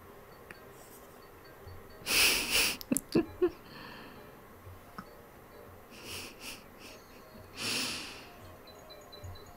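A few loud, short, breathy puffs of air, like huffs or snorts close to the microphone: one about two seconds in followed by a few sharp clicks, and two more near six and eight seconds.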